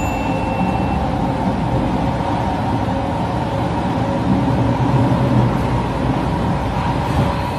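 Metro train running, heard inside the carriage: a steady rumble and rail noise with a faint steady motor whine.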